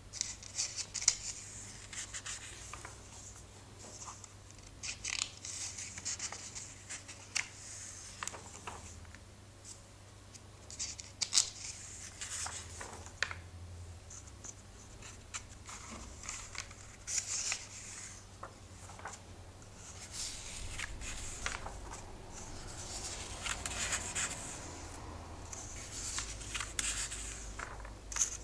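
Thin glossy pages of a comic book being handled and turned by hand: irregular papery rustles and sliding, with sharp crisp flicks as pages are flipped.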